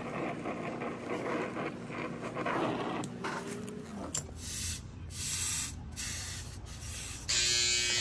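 Brazing torch hissing as its flame heats the copper process-tube stub on a refrigerator compressor, then a cloth rubbing over the compressor and its tubing. Near the end a steady buzz comes in.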